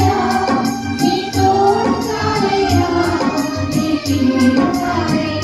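A group of women singing together into microphones, backed by instrumental music with a steady beat.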